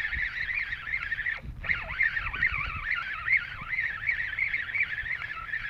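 A dense, continuous chorus of many birds calling at once, warbling and overlapping, over a low background rumble.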